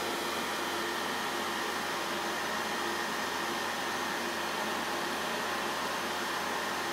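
A fan running steadily with an even whir and a faint constant hum.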